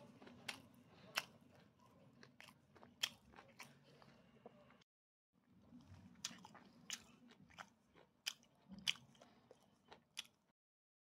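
Close-up chewing and biting on a spicy chicken wing, gnawing skin and cartilage off the bone, with irregular sharp crunches, a few louder than the rest. The sound cuts out completely for about half a second around five seconds in.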